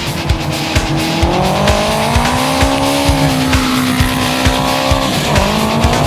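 Heavy metal music with a steady pounding drum beat, and a long held tone that bends upward about a second in, holds, then drops near the end.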